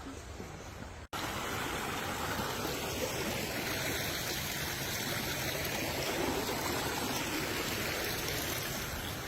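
Steady rush of fast-flowing water, starting abruptly about a second in after a short, quieter outdoor stretch.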